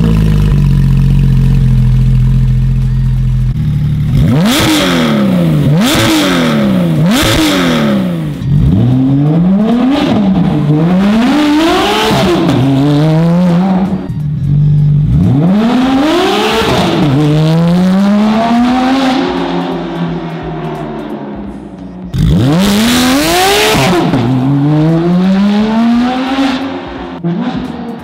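Porsche 911 GT3 RS's naturally aspirated flat-six through a full Dundon straight-pipe race exhaust. It idles steadily for a few seconds, then is blipped in a string of sharp revs, then accelerates hard, climbing in pitch and dropping at each upshift. It fades as the car pulls away near the end.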